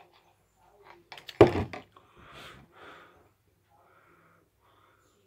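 A large plastic drinking cup set down on a surface with a sharp thump about a second and a half in, after a few small sipping clicks, followed by a couple of soft breathy exhales.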